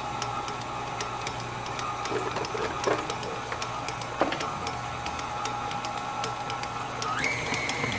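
KitchenAid Artisan stand mixer running steadily as it kneads bread dough, its motor giving a steady whine with light clicks. About seven seconds in the whine jumps higher as the mixer is sped up.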